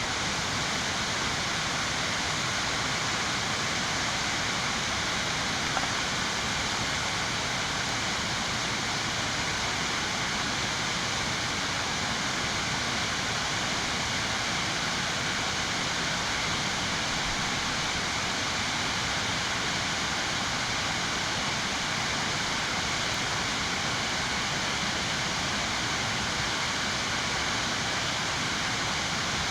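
Waterfall on a mountain creek rushing steadily, an even, unchanging wash of falling water.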